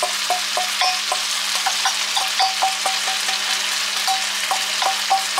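Spicy miso sauce sizzling as it hits a hot frying pan of chicken thigh and lotus root stir-fry and is stirred through, with quick light ticks of a utensil against the pan, about four a second.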